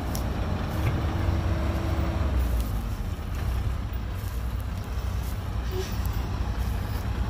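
Heavy construction machinery's diesel engine running steadily with a low rumble, with a few light knocks and clatters over it.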